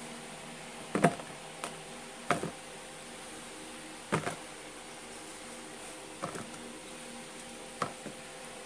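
About six short knocks and clatters, spread out over several seconds with the loudest about a second in, as pieces of fried chicken are handled between a stainless steel bowl and a plastic tupperware container. A low steady hum runs underneath.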